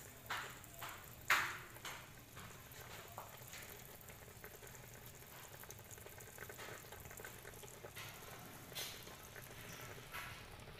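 A few sharp knocks in the first two seconds, the loudest about a second in, then a pot of pork leg and potato broth simmering with faint, steady bubbling.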